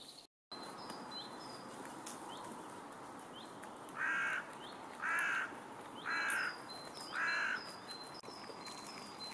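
A crow cawing four times, about a second apart, with small birds chirping faintly in the background.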